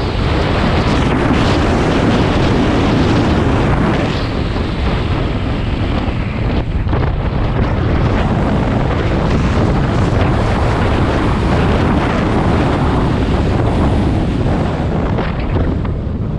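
Wind buffeting the microphone on a moving motorcycle, a steady low rush with engine and road noise underneath.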